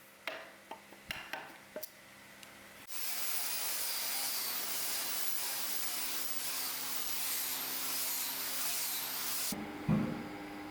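Paint spray gun spraying: a loud, steady hiss for about six and a half seconds that cuts off abruptly. It is preceded by a few light clicks and taps and followed by a thump near the end.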